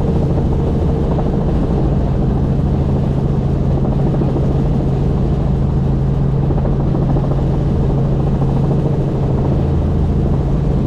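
Helicopter's engine and rotor running steadily in flight, a loud constant drone with a steady low hum.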